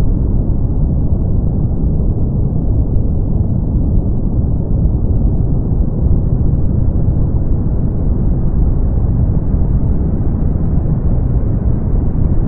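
Brown noise: a steady, deep rumbling hiss, strongest in the bass and dying away above the midrange, with no changes or events.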